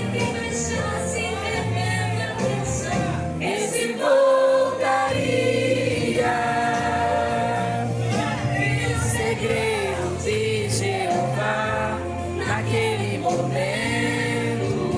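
Brazilian gospel song: a choir sings over a band with a steady bass line.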